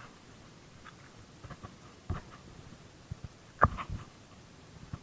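Handling noise: a few light knocks and clicks from gear being moved by hand, the loudest about three and a half seconds in.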